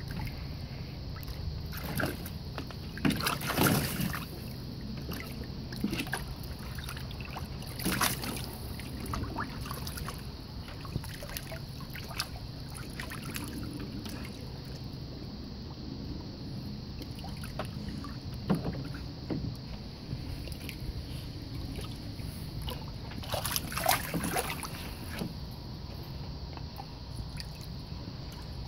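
Water sloshing and splashing in a shallow plastic kiddie pool as a dog wades and moves around in it, over the steady run of a garden hose filling the pool. The splashes come irregularly, loudest a few seconds in, about eight seconds in and again near the end.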